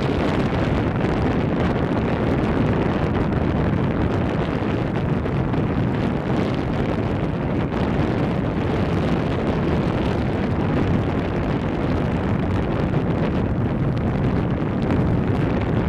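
Wind buffeting the microphone: a steady, loud low rumble and hiss that does not let up.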